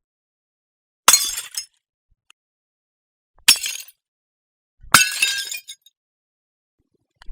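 Glass bottle smashing three times, a couple of seconds apart. Each is a sharp crash followed by about half a second of tinkling shards.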